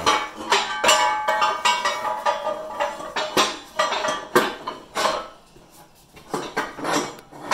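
Steel parts clanking and scraping as a Toyota semi-float rear axle assembly is manoeuvred into a welded steel press jig on a shop press: a string of sharp metal knocks, several of them ringing, with a quieter gap about five to six seconds in.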